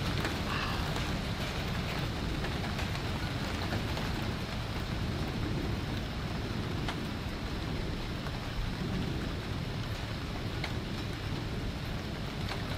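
Steady heavy rain falling, with a low rumble of rolling thunder underneath and scattered drop ticks.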